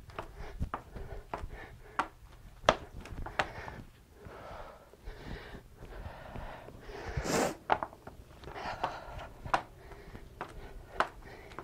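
A woman exercising with dumbbells: sharp taps and knocks of her feet and the dumbbells on the floor every second or so, mixed with hard breathing and a forceful exhale about seven seconds in.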